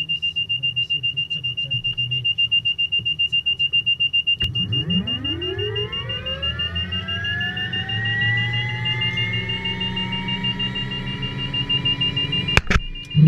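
Helicopter turbine engine starting: a click about four seconds in, then a whine that rises in pitch and levels off as the engine spools up. Over it a high warning tone beeps about four times a second and then holds steadier.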